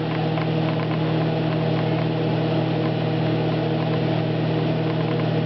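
Microwave oven running with a steady low hum while eggs heat inside, none of them bursting yet.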